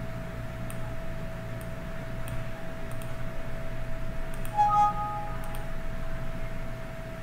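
Steady background hum with a constant mid-pitched tone and a few faint high ticks. About four and a half seconds in comes a brief ringing clink with two notes that fades within a second.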